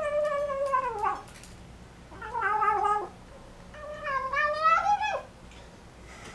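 Folded-ear American Shorthair kitten making drawn-out, wavering cries while eating, three in a row, each under a second and a half long; the first slides down in pitch.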